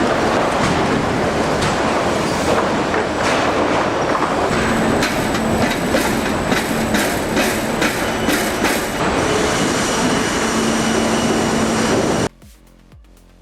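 Sawmill log profiling line running: loud, steady machinery rattle and clatter, with a run of sharp knocks and a thin high whine in the middle. It cuts off abruptly near the end, leaving a much quieter sound.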